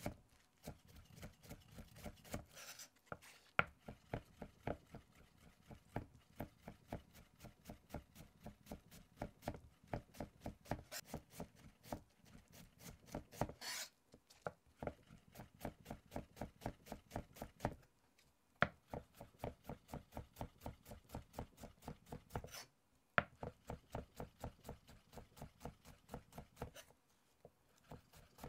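Chef's knife mincing an onion on a cutting board: quick, even chopping strokes, about four or five a second, in runs broken by several brief pauses.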